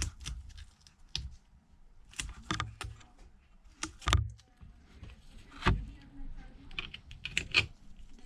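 Irregular light clicks and taps as double-sided adhesive tape is laid and pressed along the edges of a phone's frame.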